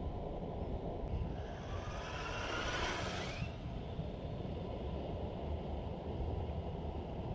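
RC model car's electric motor and gears whining, rising in pitch as it speeds up for about two seconds and then cutting off, over a steady low rumble.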